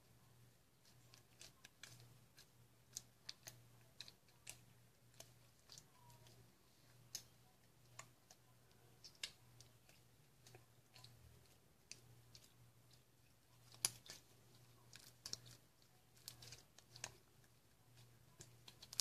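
Faint, irregular sticky clicks and pops of borax glue slime being stretched and squished between the fingers, over a low steady hum.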